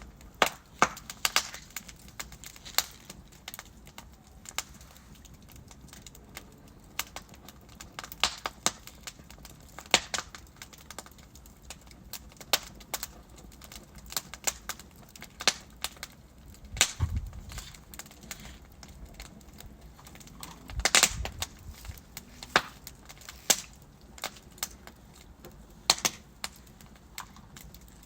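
Wood fire crackling in a fireplace: burning logs snapping and popping at irregular intervals over a low hiss, with a few louder pops about two-thirds of the way through.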